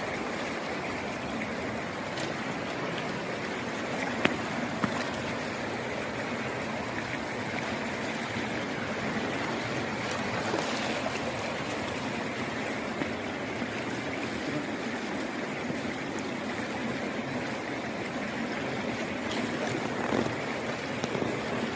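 Mountain river water rushing steadily over rocks, with a few light clicks a few seconds in and again near the end.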